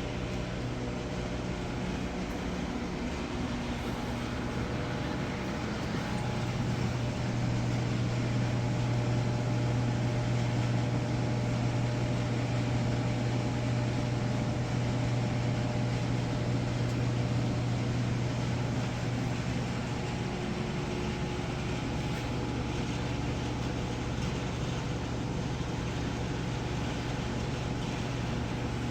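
Steady mechanical hum with a low drone and a few faint steady tones above it, growing a little louder for a while in the middle.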